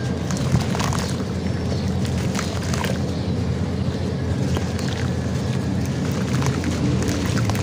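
Hands crumbling chunks of dry sand-cement mix in a plastic tub: scattered short crunches and grainy crackles over a steady low rumble.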